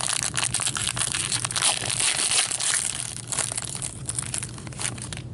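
Foil wrapper of a hockey card pack crinkling and tearing as it is opened by hand, a dense run of crackles that stops near the end.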